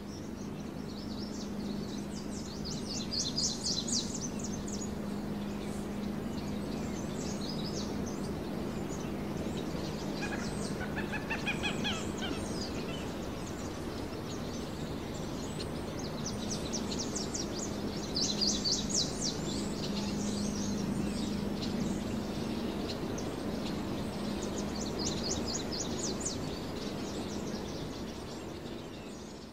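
Outdoor background sound of small birds chirping in quick trills, in several bursts, with a lower call around the middle, over a steady low hum.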